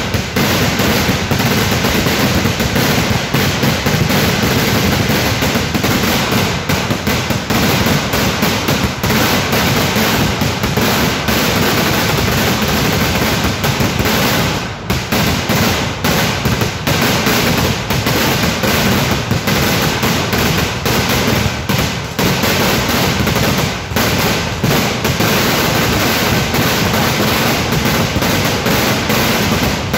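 Kerala vedikettu fireworks display going off as a dense, continuous barrage of loud firecracker bangs, with a brief lull about halfway through.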